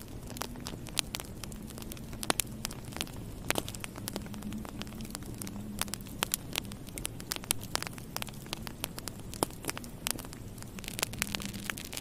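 Wood fire crackling in a fireplace: irregular sharp pops and snaps from the burning logs, several a second at times, over a steady low rush of the flames.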